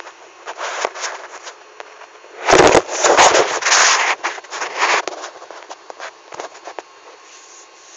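Loud clattering knocks and crackling rubs right at the phone's microphone, loudest with a deep thump about two and a half seconds in and thinning out by about seven seconds: the recording phone being knocked and handled.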